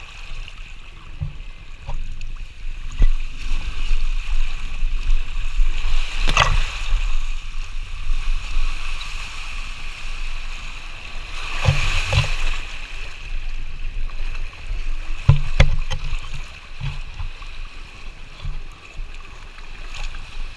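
Water rushing and splashing under a rider sliding down a water slide, a steady hiss with louder splashy surges about six and twelve seconds in. Low thumps from wind and handling knock on the pole-held action camera's microphone.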